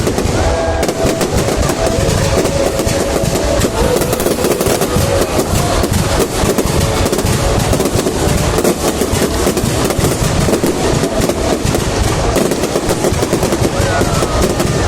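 Fireworks display going off in a dense, continuous barrage of rapid bangs and crackling, several pops a second with no pause.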